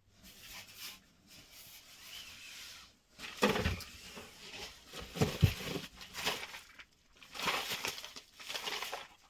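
Packaging rustling and crinkling as boxed motorcycle parts are handled and unwrapped, in irregular bursts, with two sharper thumps about three and a half and five and a half seconds in.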